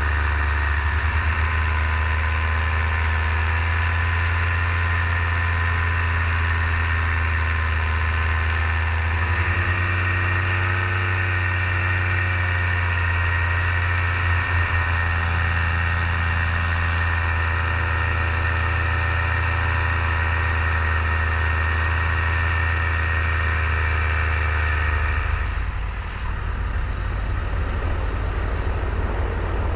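Paramotor's backpack engine and propeller running steadily in flight, a loud even drone with a low hum under it. A few seconds before the end the engine's note changes and its higher tones fall away.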